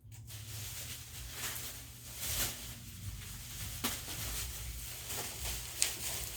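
Shopping bag rustling and crinkling as it is handled, with a few sharper crackles.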